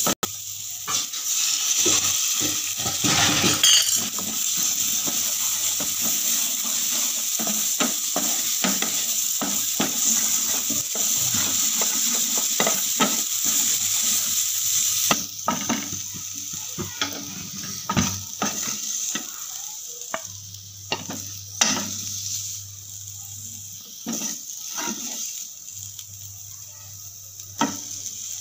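Chopped onion mixture sizzling in oil in a nonstick frying pan while a spatula stirs and scrapes it, with frequent clicks and taps of the spatula against the pan. The sizzle dies down about halfway through, leaving the scraping and tapping.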